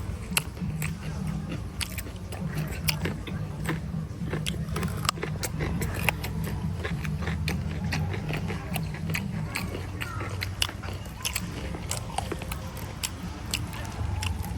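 Close-up mukbang eating sounds: a person biting and chewing pork and leafy greens, with many sharp wet mouth clicks and crunches, over a steady low rumble.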